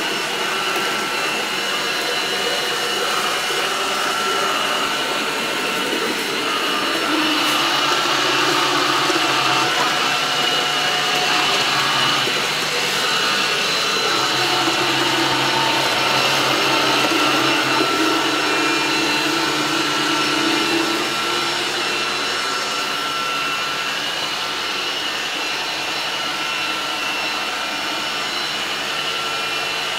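Xrobot XR 510C robot vacuum cleaner running: a steady whirr of its suction motor with a thin high whine over it. It grows a little louder about a quarter of the way in and eases back about two-thirds through.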